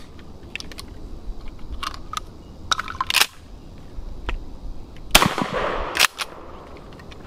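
Springfield 67F 20-gauge pump-action shotgun firing, one loud blast about five seconds in with its echo trailing off, among other sharp reports and clacks before and after it.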